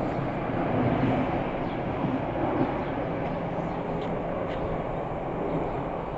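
MBTA commuter rail train running past on the tracks: a steady rumble with a low hum, slowly fading as it moves away, with a few faint ticks.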